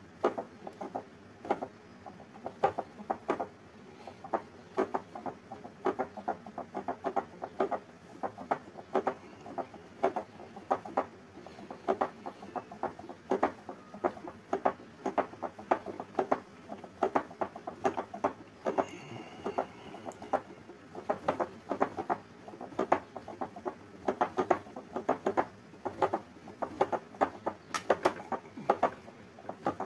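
Rapid, irregular clicking and rattling, several sharp knocks a second, that keeps up throughout: loose objects rattling as the building shakes in an earthquake.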